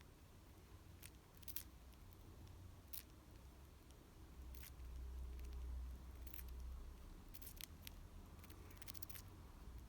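Faint, sharp clicks at irregular intervals, typical of budgies' beaks pecking or nibbling, over a low steady hum.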